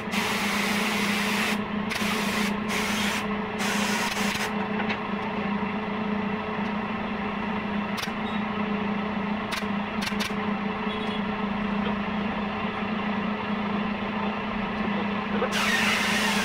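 A steady low machine hum runs throughout. Stretches of hissing noise that start and stop abruptly come in the first few seconds and again near the end, with a few faint clicks in between.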